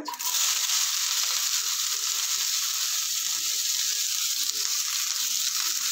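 Chopped onions hitting hot oil with cumin seeds in a kadai, starting suddenly as they are tipped in, then sizzling with a steady hiss as they begin to fry.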